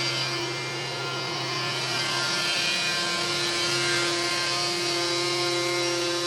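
SNIK sawmill's 7.5 kW electric motor driving the saw chain, running steadily with a constant whine.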